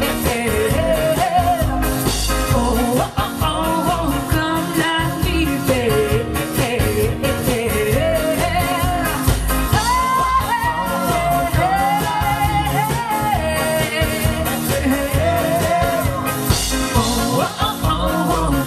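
Live pop-rock band performing a song: a female lead voice sings the melody over drums, bass and guitar with a steady beat.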